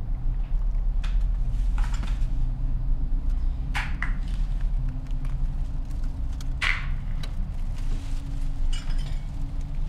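Glass bottles clinking a few times as they are picked up and dropped into a plastic trash can, over a steady low hum.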